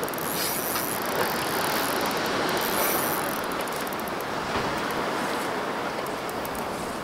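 A Shimano CI4 1000-size spinning reel ratcheting as line is worked against a heavy hooked fish, with faint clicks, over a steady rush of wind and water.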